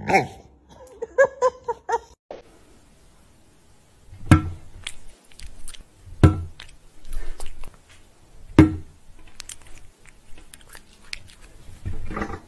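Short pitched vocal sounds for about two seconds, then a series of sharp clicks or crunches with fainter ticks between, the three loudest about two seconds apart.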